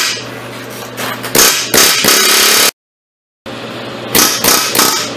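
Metal tool clanks and knocks from wrenching a long ratchet handle on a rusted front suspension pinch bolt that has stripped out, with a steady low hum underneath. There is a dense run of clanking about two seconds in, and a few sharper knocks near the end.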